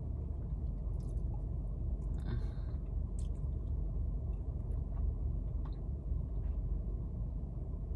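Steady low rumble inside a parked car's cabin, with a soft breath about two seconds in.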